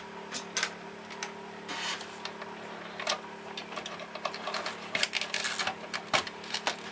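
Irregular small plastic clicks and scrapes as the mounting clips are worked back onto the back of an STC-1000 digital thermostat, over a low steady hum.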